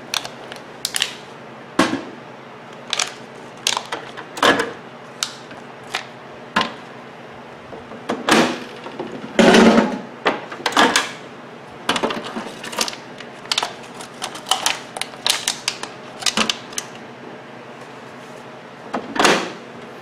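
Irregular clicks, taps and knocks as a drinking glass and a microwave oven's power cord are handled on a workbench. The loudest is a thud about nine and a half seconds in.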